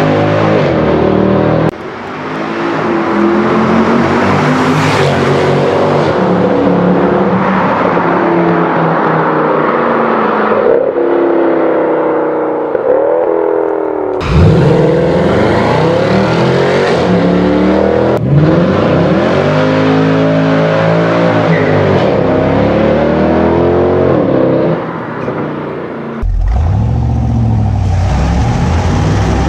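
Several different cars' engines and exhausts accelerating hard through a concrete road tunnel, one after another, each note climbing and falling back at the gear changes. Near the end a lower, steadier engine sound from inside a classic Corvette's cabin takes over.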